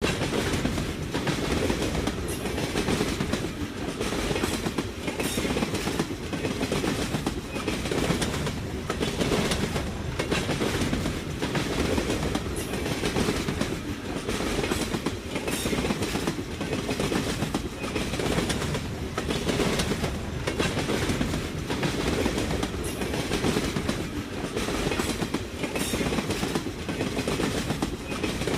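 Train rolling past: a steady low rumble of the railroad cars, with the repeated clickety-clack of wheels over the rail joints.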